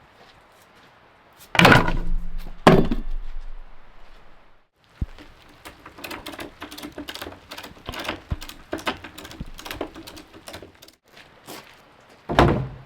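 Construction debris thrown into a trailer: two loud thunks near the start and one near the end, with lighter clattering and knocking of loose pieces in between.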